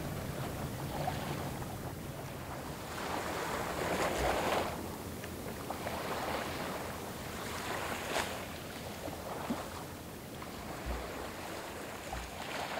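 Small waves washing and lapping at the water's edge, rising and falling in a few swells, with wind gusting across the microphone and giving a few brief low thumps.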